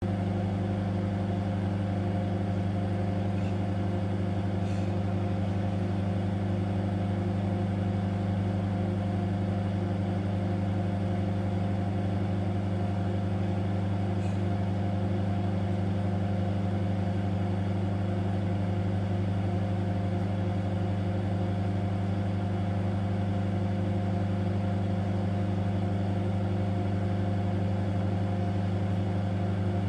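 Microwave oven running: a steady, unchanging electrical hum from the oven at work, with a couple of faint ticks.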